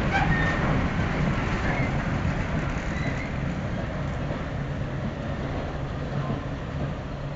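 Freight train of tank wagons rolling past, a steady rumble of wheels on rail with a low hum underneath, easing off slightly toward the end.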